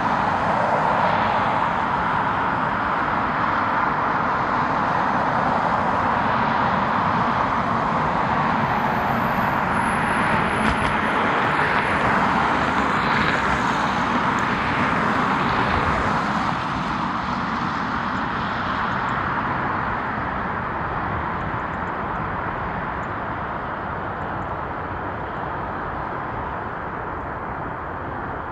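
Jet airliner engine noise, a steady rushing roar that starts fading slowly a little past halfway through as the aircraft moves away.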